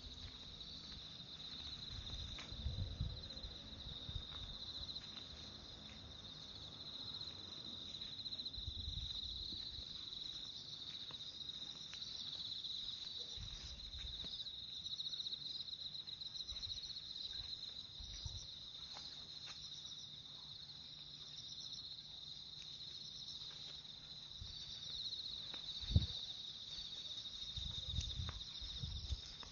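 Steady high-pitched chirring of insects such as crickets, over irregular low thuds and rustles from walking on a lapel mic. A single sharp knock comes near the end.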